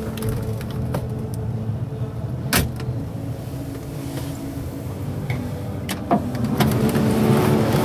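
Steady low background hum with a few sharp clicks and knocks from hands handling the small truck cab's plastic interior trim, the loudest about two and a half seconds in and two close together about six seconds in.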